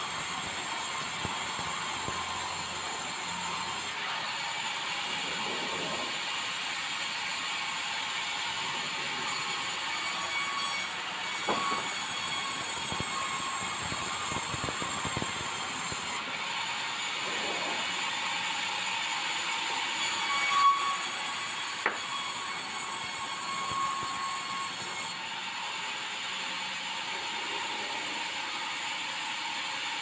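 Large band-saw mill running and sawing bengkirai hardwood, a steady high-pitched noise, with the log carriage rolling on its rails. A few sharp knocks of wood and metal stand out a third and two-thirds of the way through.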